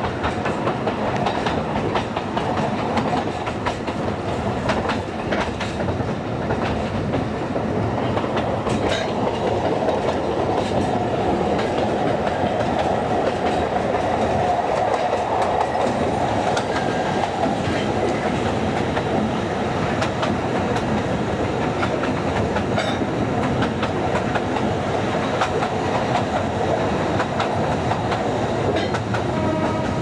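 Alishan Forest Railway narrow-gauge train running, its wheels clacking over the rail joints over a steady rumble and rattle of the carriage.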